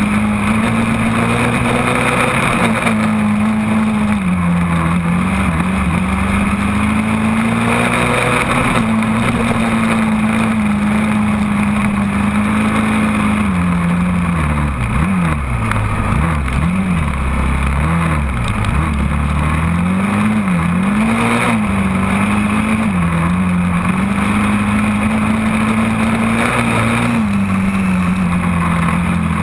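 Sport quad (ATV) engine running under throttle while ridden through sand dunes, heard close up. Its pitch holds steady for stretches and rises and falls as the throttle is worked, with several quick rises and drops in the middle and a drop near the end.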